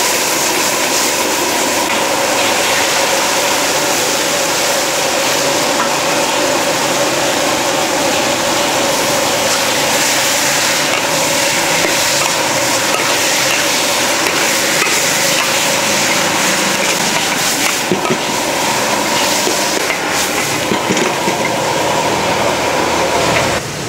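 Food frying and sizzling in a hot pan, a loud steady hiss with a steady hum beneath it, and the utensil knocking a few times after the middle as the food is stirred.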